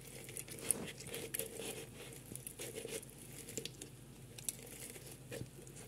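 Lemon half being pressed and twisted on a hand citrus juicer: faint, irregular rubbing with small scattered clicks.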